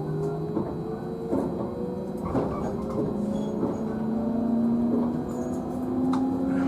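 Traction motor whine of a JR Central 311 series electric train's motor car, its tones slowly rising in pitch as the train gathers speed. A few knocks come from the wheels passing over rail joints.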